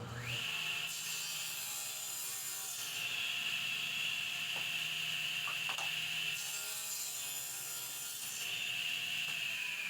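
Table saw running with a steady high whine while making a test cut that trims a thin sliver off a board; near the end the whine glides down in pitch.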